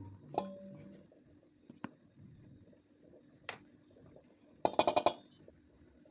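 Kitchen utensils and dishes clinking: a few separate knocks, the first with a short ring, then a quick run of about seven taps a little after the middle.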